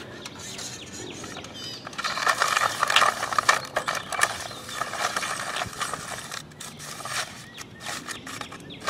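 Rustling and scattered clicks of a cord being wound up by hand, densest about two to four seconds in, with a sharp click at the very end.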